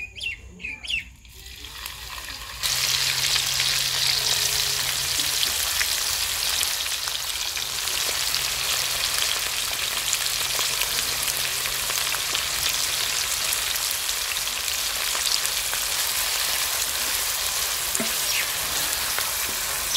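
Sliced onions sizzling in hot mustard oil in a steel karahi. The sizzle starts suddenly about two and a half seconds in as the onions hit the oil, then carries on steadily while they are stirred with a wooden spatula.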